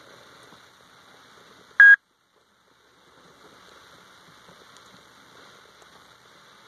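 A single short, loud electronic beep from the laptop as the Tech 2 emulator software initializes, about two seconds in, followed by a moment of dead silence; otherwise only a faint steady hiss.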